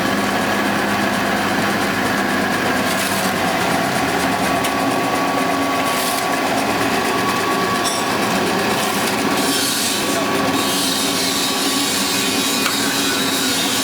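SKJ280 sawdust pellet press running steadily, its rollers pressing sawdust through the die, with a constant grinding machine noise and a few steady tones.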